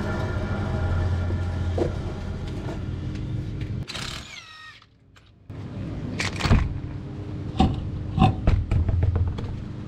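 Toyota Tacoma's spinning front wheel and drivetrain with a steady hum from a worn front wheel bearing, spinning down with a falling whine about four seconds in. After a brief quiet gap, metal tools clink and knock.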